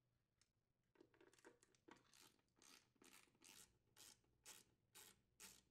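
Faint ratchet clicking, about two clicks a second, from a socket wrench backing out the hex bolts that secure a GE top-load washer's mode shifter.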